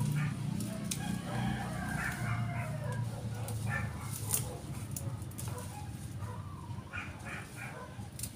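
A rooster crowing, one long call a couple of seconds in, over a steady low hum and a few sharp clicks.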